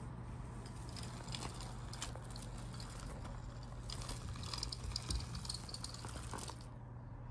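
Kittens playing: light scattered taps, scratches and clicks over a steady low hum, the clicks dropping away near the end.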